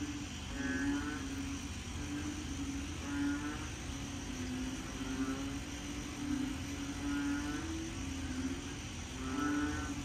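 A chorus of frogs calling at night at the start of the rainy season: low, pulsed croaks repeat about once a second over a steady background hiss.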